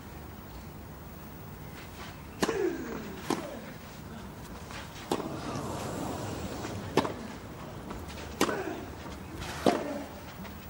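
Tennis rally on a clay court: a tennis ball struck back and forth by rackets, six sharp hits spaced one to two seconds apart, over a faint crowd hush.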